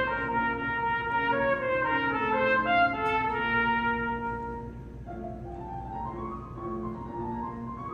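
Trumpet playing a melody over piano accompaniment in a reverberant hall. About halfway through the trumpet phrase ends and the piano carries on alone, more quietly.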